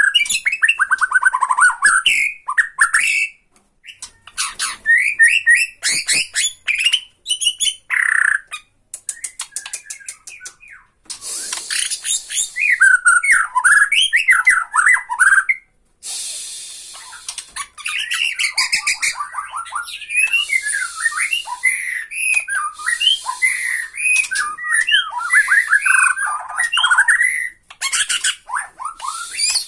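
Bornean shama (murai batu) singing loudly, with fast sweeping whistled phrases broken by dry rattling chatter (tretekan) and harsh rasping notes. A few short pauses fall between the bursts.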